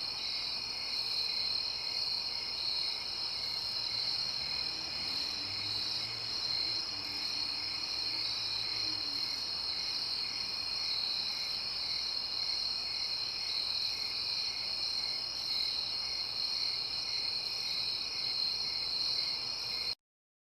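Night-time chorus of crickets trilling steadily, with a slower regular chirp pulsing about twice a second underneath. It cuts off abruptly shortly before the end.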